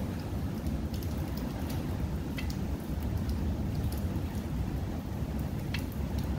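A steady low rumbling noise with a few faint, sharp clicks of small metal parts as the oil strainer screen, spring and cap are handled and fitted back into a Honda Ruckus engine.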